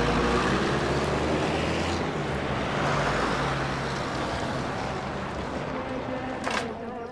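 Buses driving past on a road: engines running with road noise, slowly fading away. A short burst of noise comes about six and a half seconds in.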